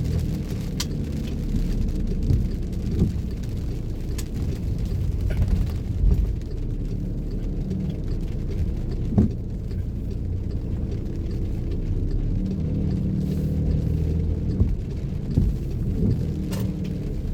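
Car driving on a wet road in the rain: a steady low road rumble from the moving car, with a few short sharp ticks scattered through it.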